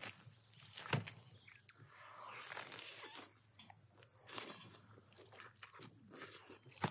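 Roasted lamb meat being torn off the bone, then bitten into and chewed, with irregular wet tearing and chewing noises and a couple of sharp snaps, one about a second in and one near the end.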